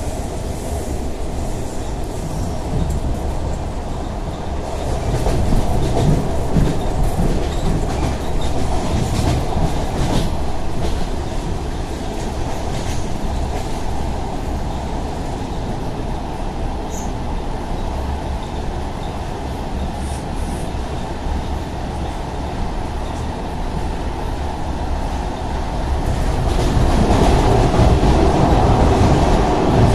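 ED4M electric multiple unit running on the line, its wheels clattering rhythmically over the rail joints in a steady, loud rumble that swells near the end.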